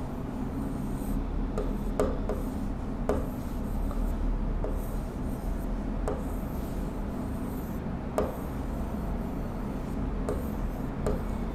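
Marker pen rubbing and scratching on a board as a diagram is drawn, with a short tick every second or two as the tip meets the surface. A steady low hum runs underneath.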